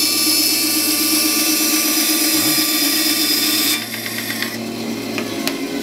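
Vevor 10-inch bandsaw ripping a board of old, hard 3/4-inch plywood along the fence. The cutting noise stops abruptly a little under four seconds in as the blade clears the end of the cut, and the saw runs on more quietly.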